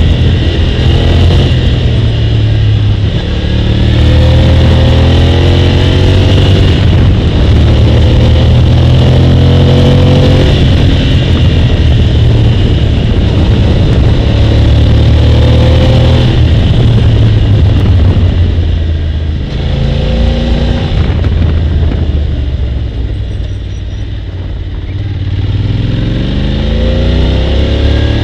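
Motorcycle engine running under load, its pitch rising and dropping again and again as it accelerates and shifts gears. It quietens for a few seconds past the middle, then picks up again near the end.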